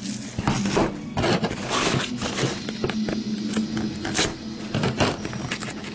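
Rustling, scraping and tearing of packaging as a sealed basketball card box is handled and opened, in a run of irregular strokes.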